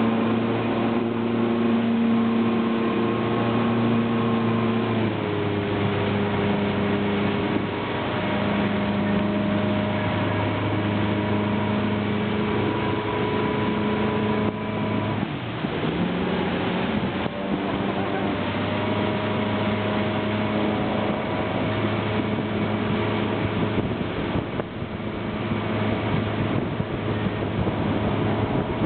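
Motorboat engine running under load as it tows inflatable tubes, a steady drone over the rush of its wake. Its pitch steps down a little about five seconds in and dips briefly about halfway through before settling again.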